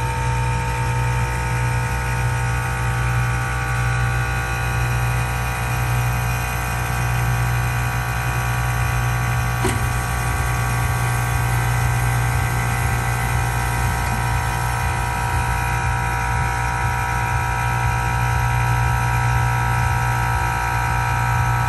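2013 Tesla Model S air-suspension compressor charging the system, a steady pump hum. It runs over and over because air keeps escaping from a T-connector in the front air line, which the owner takes to have worked loose from vibration.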